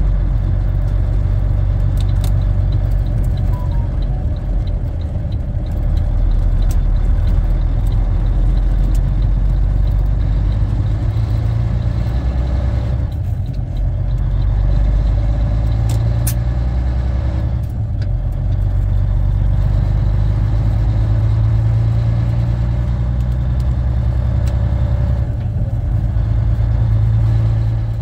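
Volvo VNL780 semi truck's diesel engine heard from inside the cab as the truck pulls away and drives on, the engine sound dropping off briefly three times, about halfway through, at about two-thirds and near the end, as gears are changed on the manual gearbox. Light rattles in the cab.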